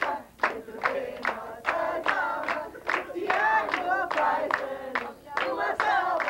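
A group of children and adults singing a birthday song together, with hand clapping in time to the beat.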